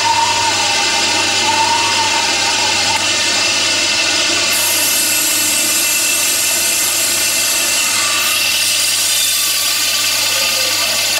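Laboratory electric motors, a rotary evaporator and its vacuum pump, running with a steady, loud mechanical whine and hum.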